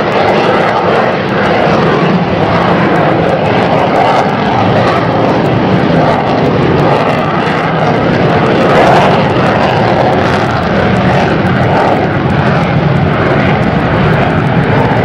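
Fighter jet's engine noise heard from the ground as it flies its display: a loud, steady rushing rumble that swells briefly about nine seconds in.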